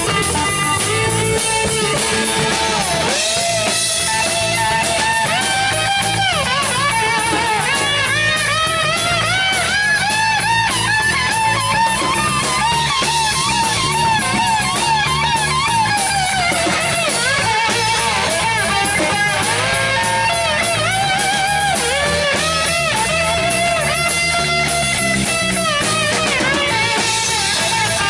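Live rock band playing: electric guitar, electric bass and drum kit, the guitar playing lead lines with notes that bend and waver over a steady beat.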